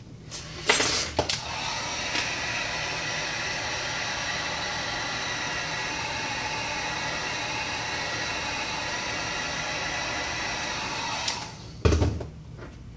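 Heat gun switched on with a click, its fan motor running steadily with a whine for about ten seconds, then switched off with a knock.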